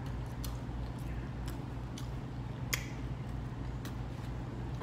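A person chewing a mouthful of steak with lips smacking: scattered wet clicks every half second or so, over a steady low hum.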